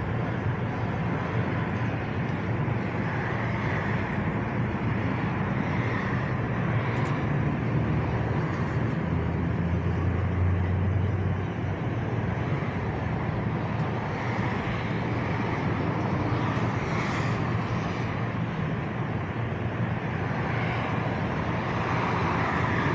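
Steady low rumble of vehicle engine noise with a constant hum, like an engine running nearby.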